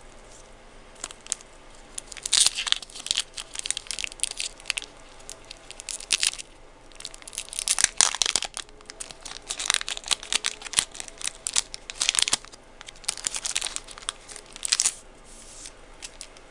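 Yu-Gi-Oh booster pack wrapper being torn open and crinkled in the hands, in several spells of crackling and tearing with short pauses between them.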